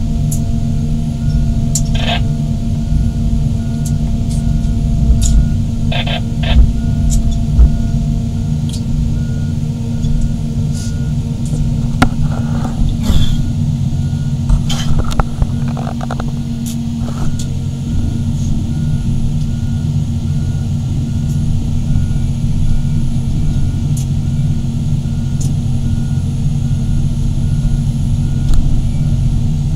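Diesel engines of large crawler excavators running steadily under load, with a few short knocks and clanks scattered through, most of them between about twelve and seventeen seconds in.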